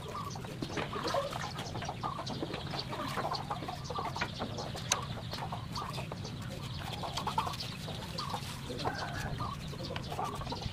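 Chickens clucking on and off in the background, with sharp clicks and taps of a knife cutting watermelon rind; the loudest click comes about halfway through.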